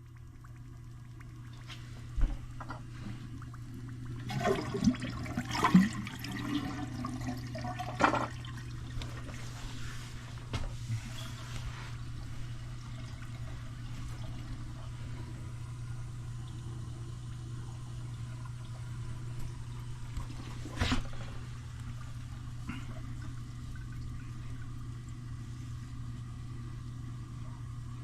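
Toilet flushing and its tank refilling, water running steadily through a worn fill valve that no longer shuts off. A few clunks and splashes come in the first eight seconds, and there is a single sharp knock about 21 seconds in.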